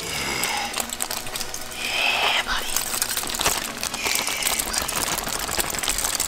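Aluminium foil crinkling and crackling in the hands as a foil packet of saucy chicken is tipped and emptied into a bowl, with rapid dense crackles and a couple of brief brighter rustles about two and four seconds in.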